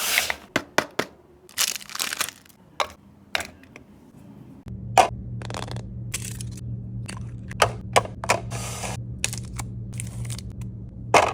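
Kinder chocolate sweets being snapped and crunched close up: a run of sharp cracks and short crunches, with a few longer crackling rustles. About four and a half seconds in, a steady low hum starts underneath.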